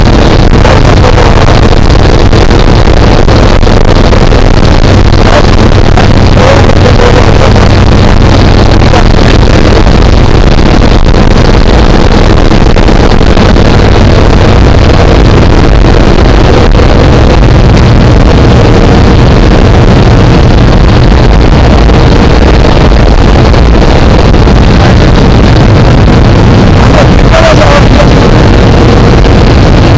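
Loud, steady drone of a propeller aircraft's engine heard from inside the cabin, mixed with rushing air.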